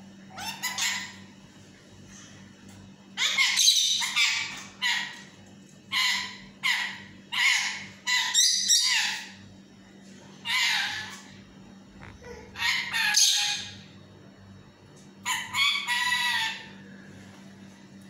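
Lutino Indian ringneck parakeet calling: a dozen or so short, loud calls in quick runs separated by brief pauses.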